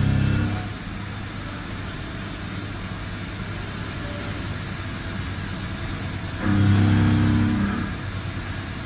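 A machine running with a steady low hum. The hum drops away about half a second in, leaving a quieter rumble, and comes back loudly for about a second near the end.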